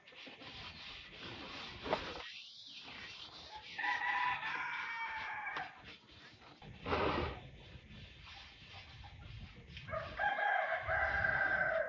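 Rooster crowing twice, once about four seconds in and again near the end, each call lasting a couple of seconds. Underneath is a rough rubbing from wood ash being scrubbed against an aluminium pot.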